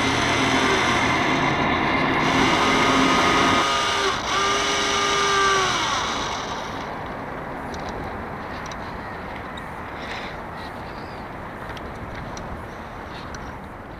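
Rush of wind and water on an RC yacht's on-board camera, with the sail winch servo whining in two short spells that bend in pitch as the motor starts and stops. The rushing drops away about seven seconds in, leaving a softer steady hiss.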